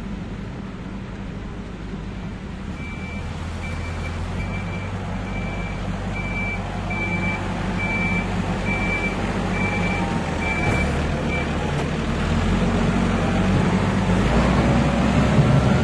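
Tractor engine running with a steady low hum while a reversing alarm beeps about ten times, a little under once a second, then stops. The engine grows louder toward the end as it works.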